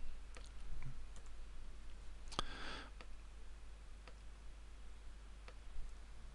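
Scattered faint clicks of a computer mouse and keyboard, about half a dozen spread out, as menus are opened and text is cut and placed. A short hiss comes about two and a half seconds in.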